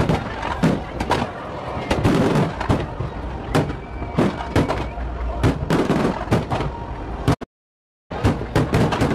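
Fireworks display: aerial shells bursting in a quick, irregular series of bangs. The sound cuts out completely for under a second about seven seconds in.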